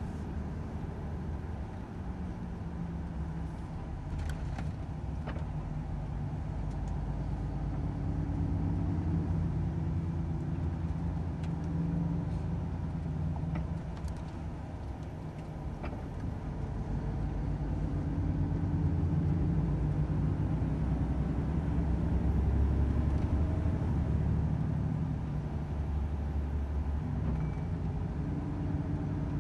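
Volvo FH 500 truck's 13-litre inline-six diesel running on the road, its low engine note shifting in pitch and swelling louder twice as the truck drives on.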